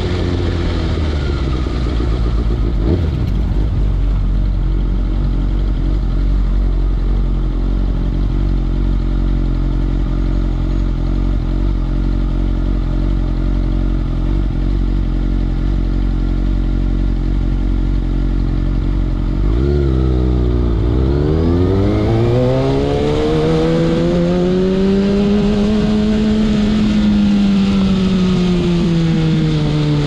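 Kawasaki ZX-6R 636 inline-four engine with a Carbox racing exhaust. Its revs fall to a steady idle, then about twenty seconds in a quick blip of the throttle leads into a long climb in revs that eases off near the end.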